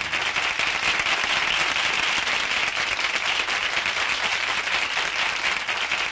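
Studio audience applauding with dense, steady clapping, as the band's last held chord dies away right at the start.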